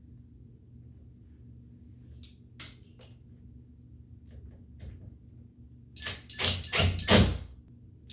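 A door and its hardware being handled: a few faint clicks, then a quick run of loud knocks and thuds near the end.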